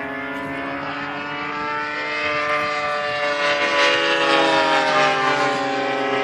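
Two-stroke gas engine of a 50cc Edge RC aerobatic plane in flight. Its note rises and falls in pitch as it manoeuvres, getting louder and loudest about four to five seconds in as it comes closer.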